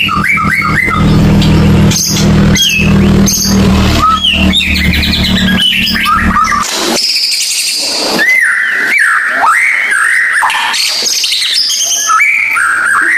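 White-rumped shama (murai batu) singing a fast, varied run of whistles, sweeping glides and short trills. A low steady hum runs underneath and cuts off about halfway through.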